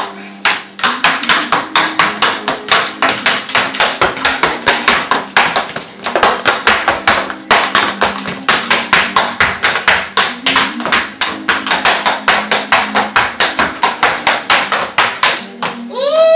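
Sound effect from a hobby horse toy: loud recorded galloping hoofbeats, a fast even clip-clop of about five beats a second, with a whinny starting right at the end.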